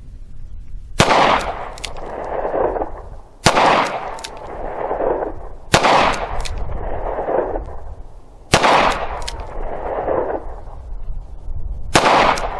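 Five shots from a Ruger SP-101 revolver firing .38 Special rounds, fired slowly, about two and a half to three seconds apart. Each sharp report trails off in a long echo.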